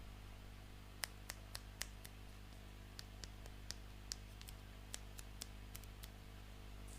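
Light, irregular clicks and taps from plastic toy pieces being handled, about twenty of them over four to five seconds, over a steady low hum.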